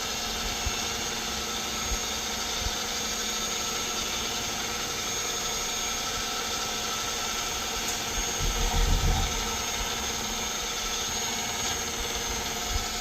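Electric mixer running steadily, whipping beef tallow into a thick whipped-cream-like balm. A brief low rumble about two-thirds of the way through.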